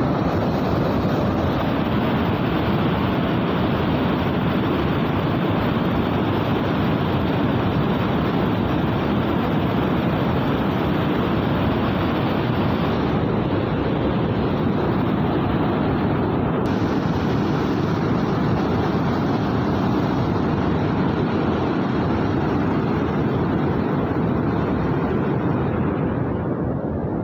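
Muddy floodwater rushing through the open spillway gates of a dam in a steady, unbroken torrent, the dam releasing water at high flood discharge. It eases slightly near the end.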